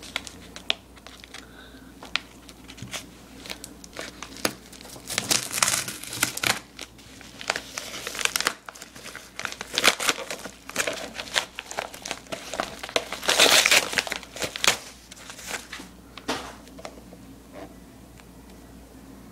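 Paper bubble mailer crinkling and tearing as it is opened by hand and a DVD case is pulled out, in irregular crackly bursts that die down near the end.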